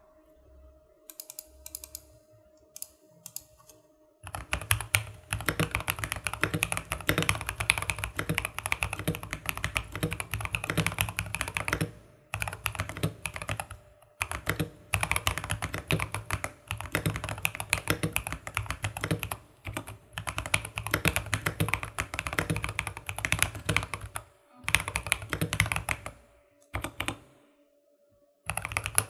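Typing test on a modded Vortex Series GT8 mechanical keyboard, its lubed JWK T1 tactile switches (mixed with some stock Otemu Red linears) under tall PBT ASA-profile keycaps. A few scattered keystrokes open it. About four seconds in, fast continuous typing starts and runs in bursts with brief pauses.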